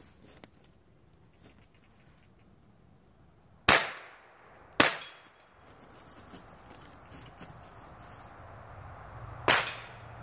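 Three rifle shots, sharp cracks about four seconds in, a second later, and near the end, the second followed by a brief high metallic ring. Footsteps in snow can be heard between the shots.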